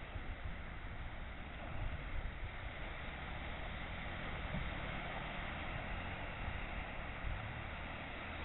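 Small waves breaking and washing up on a sandy beach, a steady hiss, with wind buffeting the microphone in low gusts.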